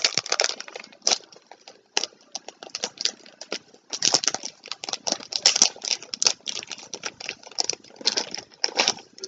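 Packaging being handled and unwrapped: a dense run of irregular crinkles, rustles and small clicks, thinner during the first four seconds and busiest after that.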